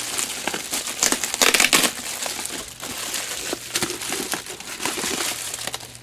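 Plastic bubble mailer and bubble wrap crinkling as they are handled and pulled open: a dense run of crackles and small pops, loudest about one to two seconds in.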